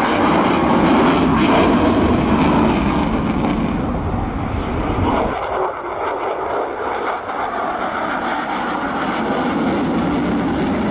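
F-16 fighter jets in a display pass, a loud, steady jet rush. About five seconds in, the deep low end drops away and the noise turns thinner.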